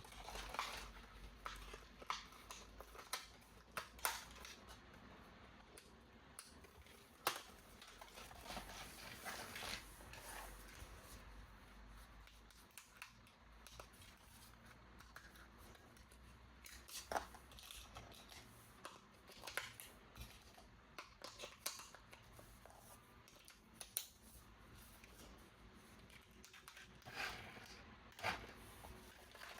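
Scissors snipping and plastic toy packaging being handled during an unboxing: faint, irregular sharp clicks and short rustles.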